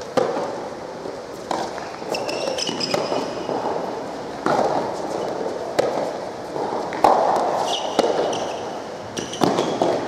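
Soft tennis rally: sharp pops of rackets hitting the soft rubber ball and the ball bouncing on the court, about one every second or so, echoing in a large hall. Short high squeaks of shoes on the court come in between the hits.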